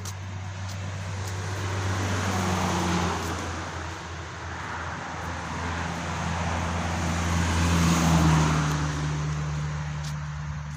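Motor vehicle engine and road noise, with a steady low hum and two swells in loudness, about three and eight seconds in, like vehicles going past.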